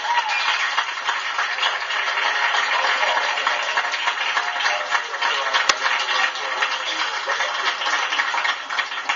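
Audience applauding steadily, with one sharp click a little past halfway.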